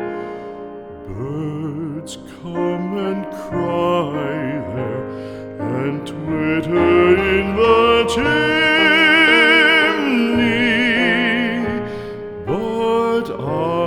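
Music in an operatic style: long sustained notes with strong vibrato over an instrumental accompaniment, with no words.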